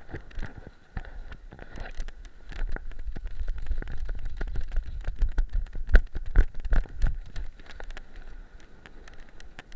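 Shingle pebbles clattering and crunching under a weimaraner's running paws, heard from a camera worn on the dog, with wind buffeting the microphone in a low rumble. The clatter is densest and loudest in the middle stretch, with a few sharper knocks about six seconds in.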